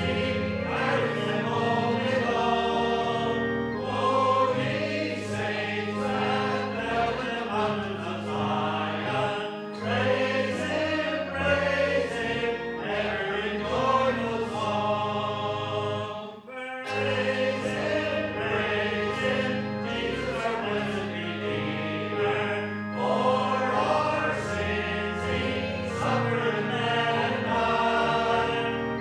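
A congregation singing a hymn together with instrumental accompaniment, with a brief pause about halfway through between lines.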